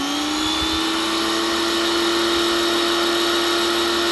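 Sun Joe SPX3500 electric pressure washer running and spraying water: a steady motor-and-pump whine over a hiss, its pitch climbing over the first half second as the motor comes up to speed.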